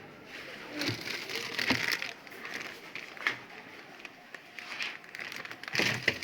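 Packaging being handled: crinkling and rustling in two stretches, one about a second in and one near the end, with a couple of sharp knocks between them.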